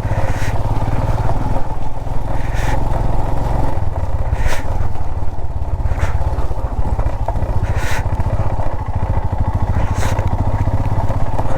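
Motorcycle engine running steadily while riding a slushy off-road track, with short rushes of noise about every two seconds.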